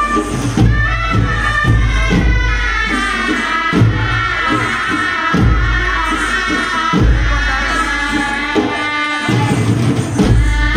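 Live Chhau dance music: a reed pipe plays a wavering melody over deep drum beats.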